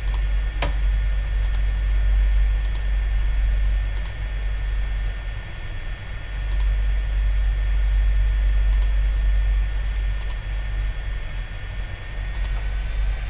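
Steady low electrical hum with a faint high whine, and a few scattered light clicks from a computer mouse, one sharper click about a second in.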